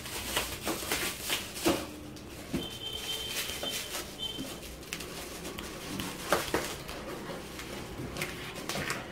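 Clear plastic wrap on a cardboard TV box crinkling and rustling as it is pulled and cut away, with scattered clicks and scrapes.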